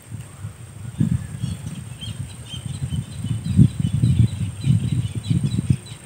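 Outdoor riverbank ambience: irregular low rumbling and bumps, with faint bird chirps through the middle seconds and a thin steady high whine.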